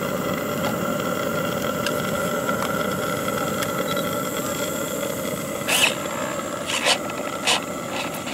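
A steady rushing hiss from the model steam paddle wheeler's boiler plant as it heats up. From a little over halfway, four short whirring bursts from the radio-control servos are louder than the hiss, as the speed control is worked forward and reverse.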